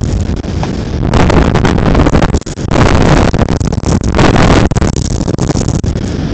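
Loud, gusting rushing noise of wind buffeting the outdoor camera's microphone, swelling and dropping away abruptly, with a brief lull about two and a half seconds in.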